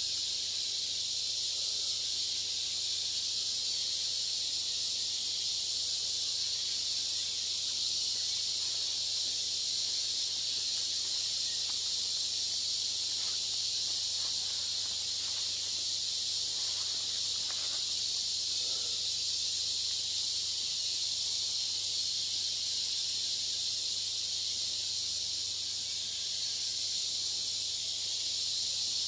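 Steady high-pitched hiss of an insect chorus in forest, unbroken and even throughout.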